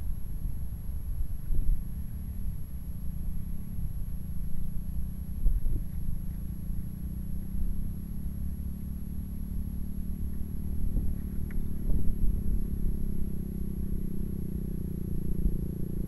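Wind buffeting the microphone in gusts. From about halfway through, a small engine running is heard drawing steadily closer and louder.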